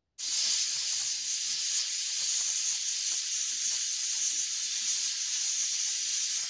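Pressure cooker hissing steadily as steam escapes around its weighted vent valve, the sign that it has come up to pressure. The hiss starts suddenly just after the beginning.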